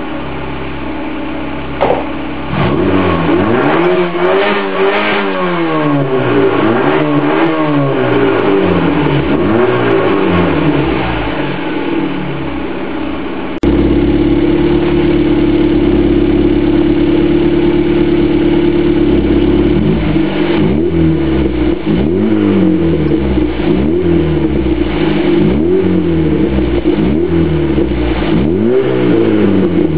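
Škoda Favorit's four-cylinder petrol engine breathing through an aftermarket Ulter Sport Duplex exhaust. It idles briefly, then is blipped up and down repeatedly. About halfway in it jumps to a steady, higher engine speed and is held there for several seconds, then goes back to a run of quick revs.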